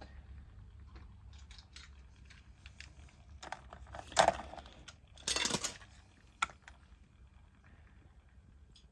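Small plastic Transformers toy figure being handled and transformed, its plastic parts clicking and clacking in scattered taps, with two louder scraping clatters about four and five and a half seconds in.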